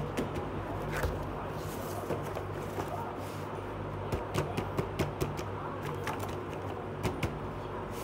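Cardboard box being handled and its lid lifted off, with scattered light taps and clicks and a brief rustle about two seconds in, over a steady low hum.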